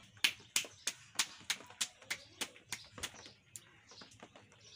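Dough being slapped between the palms to flatten a roti by hand: about a dozen sharp pats at about three a second, stopping about three and a half seconds in.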